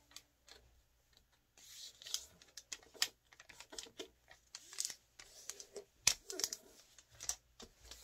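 A sheet of origami colored paper being folded in half and creased by hand: irregular crisp rustles and crinkles, sparse at first and busier after about a second and a half.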